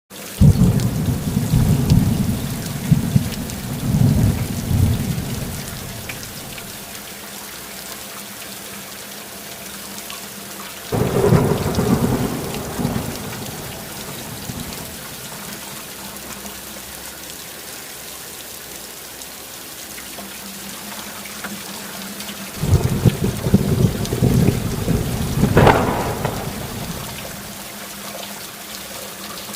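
Thunderstorm: steady rain with three loud rolls of thunder, one near the start, one about eleven seconds in, and one longer roll in the last third.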